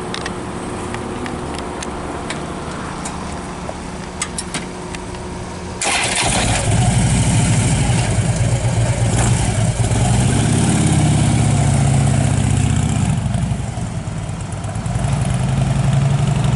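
Motorcycle engine starting suddenly about six seconds in, then running with its revs rising and falling twice.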